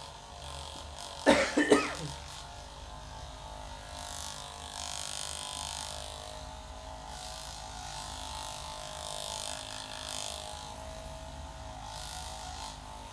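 Hands rubbing over skin and hair during a head and shoulder massage, in soft patches of hiss over a steady low electrical hum. About a second in there is a short, loud cluster of sharp sounds.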